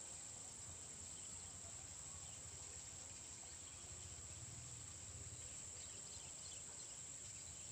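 Faint, steady high-pitched insect chorus, an unbroken shrill drone, over a low outdoor rumble.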